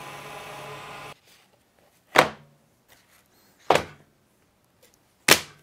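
Electric drill motor running steadily in a home-made jig for drilling dowel holes, cut off suddenly about a second in. Three sharp knocks follow, about a second and a half apart.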